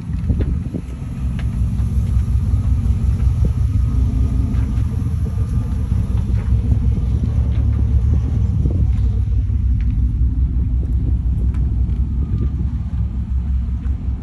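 A car engine idling, a steady deep rumble that swells over the first second or two.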